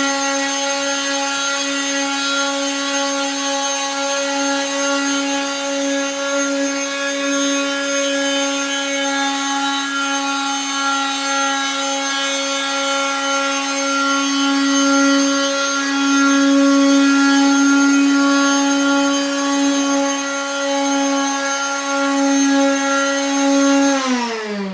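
Electric power sander running steadily against wooden cabinet surfaces with a high, constant motor hum and rough scrubbing. Near the end it is switched off and the motor's pitch falls as it winds down.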